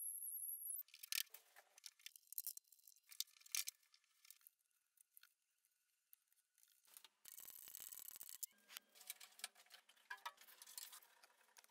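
Near silence broken by scattered faint clicks and knocks of wooden parts and clamps being handled, with a stretch of almost nothing in the middle and busier clicking near the end.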